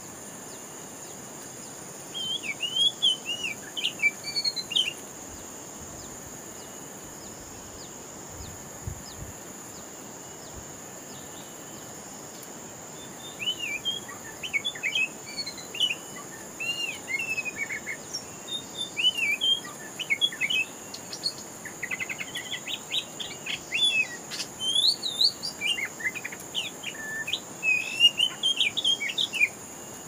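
Oriental magpie-robin (kacer) singing in varied whistled phrases, first briefly a couple of seconds in, then almost without a break from about halfway to the end, with a fast rattling run of notes partway through. A steady high-pitched hum sits underneath throughout.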